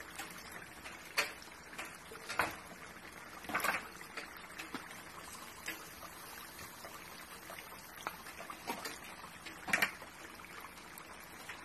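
Chicken wings deep-frying in hot oil: a steady sizzle of bubbling oil, broken by a handful of sharp pops and spits, the loudest about a second, two and a half seconds and three and a half seconds in, and again near the end.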